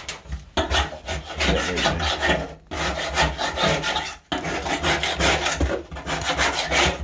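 Rough rubbing and scraping close to the microphone, continuous apart from two brief breaks near the middle.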